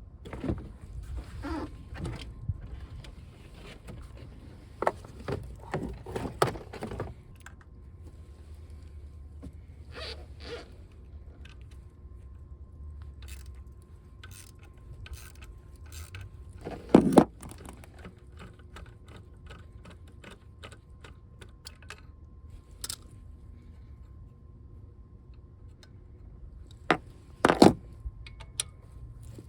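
Scattered clicks, scrapes and clunks of hand tools and parts being handled in a pickup truck's engine bay, busiest in the first few seconds, with two louder knocks, one about halfway through and one near the end.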